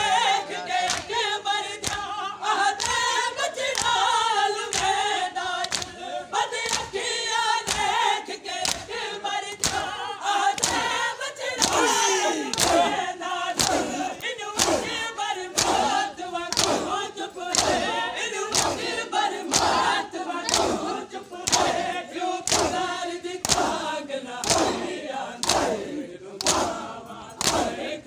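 Many men chanting a noha together while beating their chests with open hands in unison: a steady beat of loud slaps, about one and a half a second, under the chanting.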